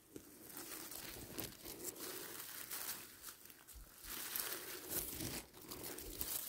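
Soft, irregular rustling and crinkling with scattered small crackles, from movement and handling among forest-floor vegetation while mushrooms are picked.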